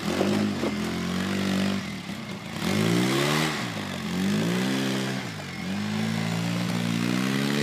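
Polaris RZR side-by-side's engine revving as it drives off across rocky dirt, its pitch rising and falling several times, then holding steady near the end.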